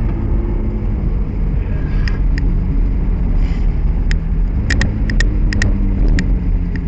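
McLaren 570S's 3.8-litre twin-turbo V8 running steadily, heard from inside the cabin, with a scatter of short sharp clicks about two thirds of the way through.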